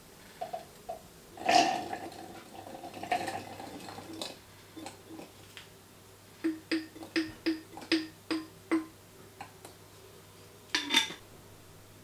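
Glass and plastic kitchenware clinking and tapping as red berries are tipped from a drinking glass into a mini food chopper bowl: a loud clink about a second and a half in, a run of about eight quick, evenly spaced taps in the middle, and another loud clatter near the end.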